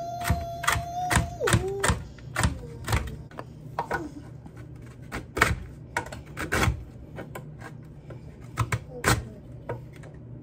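Chef's knife chopping pecans and a toffee bar on a cutting board: irregular sharp knocks of the blade on the board, with gaps in the second half. At the start a child sings one held note for about a second and a half, then drops in pitch.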